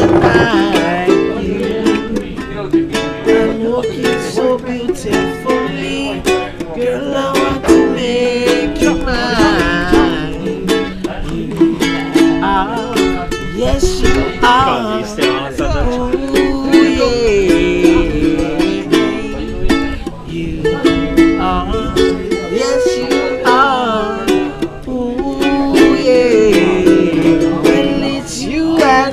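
Ukulele strummed in a steady rhythm, with a man singing along over the chords.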